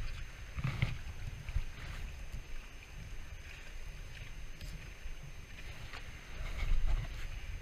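Wind buffeting the microphone in uneven low rumbles over moving river water, loudest briefly near the end.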